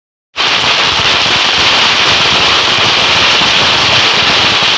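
A bundle of Kit Kat firecrackers going off together, a loud, dense, unbroken crackling fizz that starts abruptly a moment in and holds at an even level.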